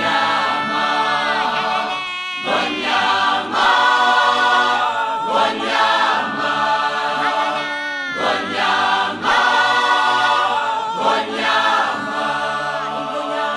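Background music: a choir singing in harmony, in phrases that rise and fall.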